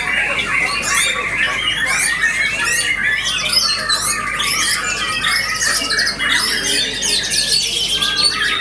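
White-rumped shama song: a dense, unbroken stream of fast whistled notes and trills that sweep up and down, mostly high-pitched.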